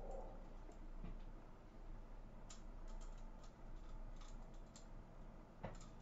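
Faint, scattered light clicks and taps, a few seconds apart: small paper scrapbooking embellishments being picked through by hand.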